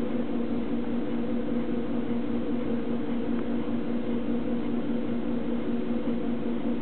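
Steady machine hum over an even hiss, unchanging throughout.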